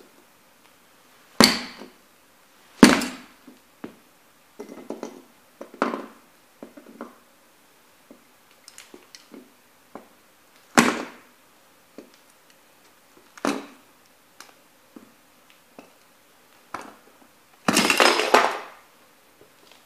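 Nike Air Max 90 sneaker soles stomping on and crushing the pieces of a small plastic-and-metal toy truck against a board: a series of sharp crunching impacts. The loudest come about one and a half and three seconds in and near eleven seconds, and a longer grinding crunch comes near the end.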